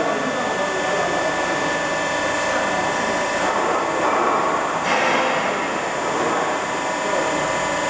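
Plastic pallet welding machine running, a steady mechanical hum with several steady high whining tones over it, growing a little louder and noisier for about a second around four to five seconds in.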